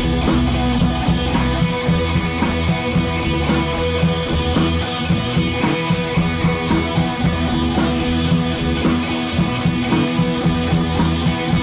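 Background rock music with guitar and drum kit, steady beat.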